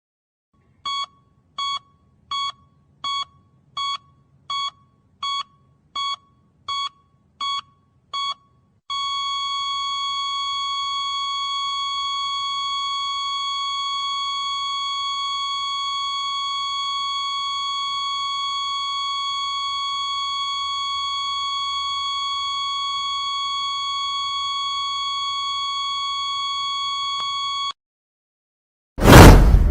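Heart-monitor sound effect: a high electronic beep repeating about every three quarters of a second, eleven times, then a long unbroken flatline tone of the same pitch that cuts off after nearly twenty seconds, signalling cardiac arrest. Near the end a sudden loud metallic clang strikes.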